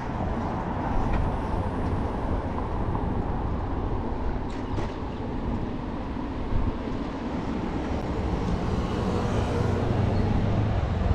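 Steady rushing street noise of riding a bicycle through city traffic: low wind rumble on the microphone and road noise, with cars around. A couple of brief light clicks about four and a half seconds in.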